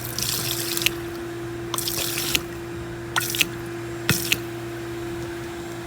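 Fluid poured from a bottle into a car's under-hood reservoir in about four short pours, topping it up toward the full line.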